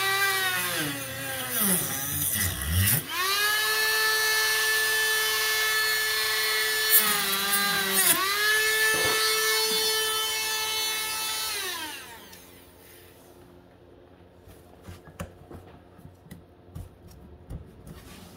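Dremel rotary tool whining at high speed as it cuts into a seized, rusted golf-cart forward/reverse selector switch. Its pitch wavers under load for the first few seconds, then holds steady with a brief dip about eight seconds in, and it winds down about twelve seconds in. Faint clicks follow as the selector is handled.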